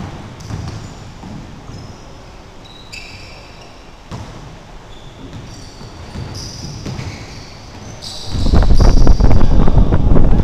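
Basketball bouncing on a hardwood gym court, with brief high squeaks of sneakers. About eight seconds in, a loud rumbling buffeting noise on the microphone takes over.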